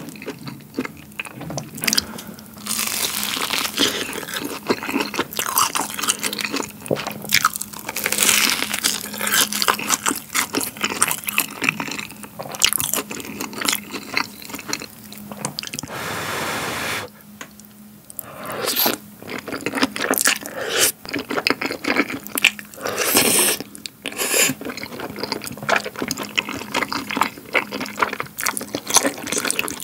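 Close-miked eating: a run of crunching bites and chewing of a sauce-coated battered hot dog and chewy tteokbokki rice cakes.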